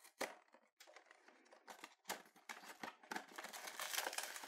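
Hands opening a small cardboard blind box, with light scraping, clicking and rustling of the cardboard flaps and lid. The sounds are sparse at first and grow busier about halfway through.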